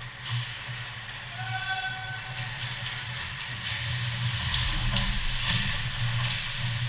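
Ice hockey rink sound during play: a steady low arena hum with skates scraping and sticks clicking as players come in on the net. A short pitched tone sounds about a second and a half in.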